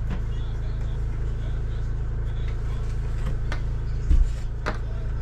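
An engine running steadily with a low hum, with a few light clicks and a low thump about four seconds in.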